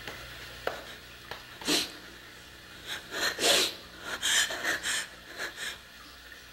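A woman's ragged, noisy breathing: a string of short, sharp breaths and gasps at an irregular pace, starting about a second and a half in and dying away near the end. A low steady hum lies under it.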